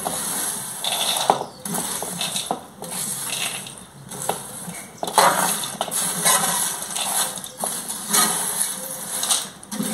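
Metal spatula scraping toasted pumpkin seeds across a clay comal toward a bowl, in repeated scraping strokes with the dry seeds rattling.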